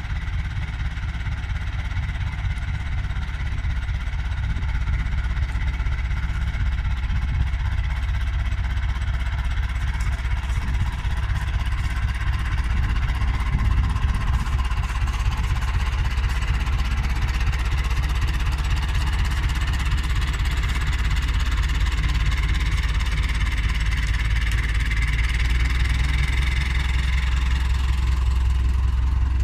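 Farm tractor's engine running steadily, growing louder over the first half as the tractor drives close by; the tractor is hitched by a tow bar to a trolleybus.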